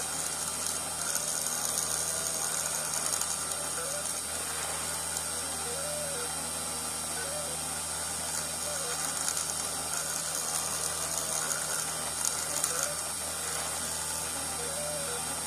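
CNC 2417 mini milling machine cutting copper: the spindle motor runs with a steady high whine while the axis stepper motors hum, their pitch rising and falling in a repeating pattern about every second or two as the tool moves.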